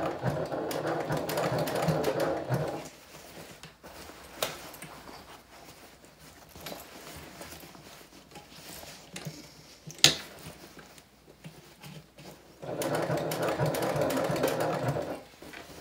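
Electric sewing machine top stitching through thick layers of fabric. It runs in two bursts, one lasting under three seconds at the start and another of about two and a half seconds near the end, with a pause between them. A single sharp click comes about ten seconds in.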